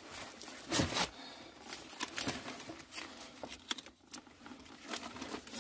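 Clear plastic packaging and a nylon bug-out backpack rustling and crinkling as hands handle them, in scattered short rustles and clicks with a louder rustle about a second in.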